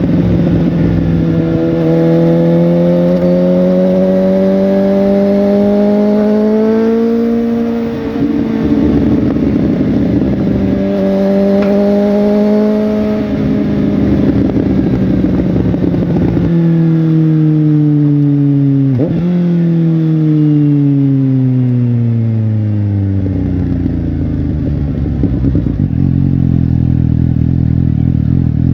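Suzuki GSX-S750's inline-four engine under way: its pitch climbs steadily under throttle for about seven seconds, turns rougher for a stretch, then falls as the bike slows, with one quick throttle blip partway through the slowdown. It settles into a lower, steady running near the end.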